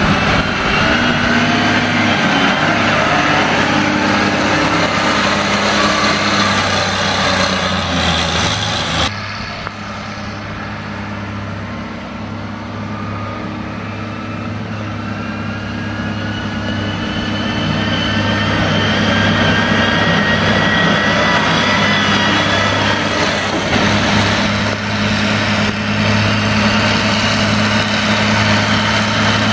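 John Deere 544E wheel loader's diesel engine running loudly and steadily, with a whine that climbs slowly in pitch through the middle as the loader drives along a gravel road.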